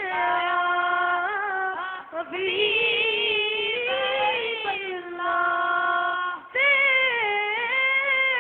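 A small group of young men singing an Islamic devotional song in unison into microphones, holding long drawn-out notes that glide from pitch to pitch, with short breaths between phrases.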